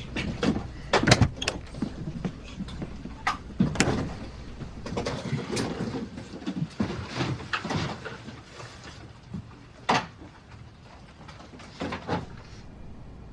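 Irregular knocks and clatters, a dozen or so, loudest about a second in and again near ten seconds, over a steady low hum that fades out about halfway through.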